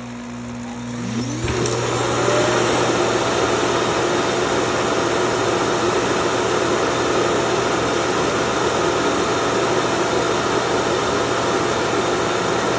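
Self-emptying station of a Eufy RoboVac L35 Hybrid+ running its suction motor to empty the robot's dustbin. It starts about a second in with a rising whine, then runs loud and steady with a rushing airflow noise.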